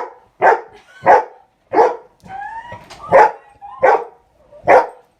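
Dog barking repeatedly, about seven barks spaced a little under a second apart, with a short whine between them around the middle.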